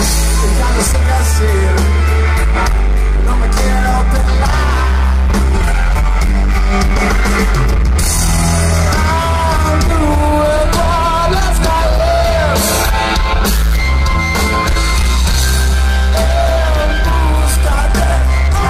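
Live rock band performing, with electric guitars, keyboard and drums under a sung melody and a heavy bass, heard from within the concert crowd.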